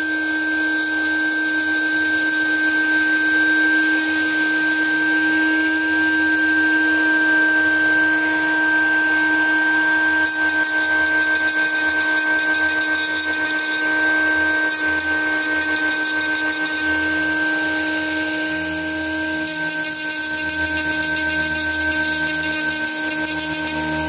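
High-speed rotary handpiece spinning a small burr, running with a steady high whine over a lower hum as the burr cuts away the background around hand engraving on a Glock 26 barrel.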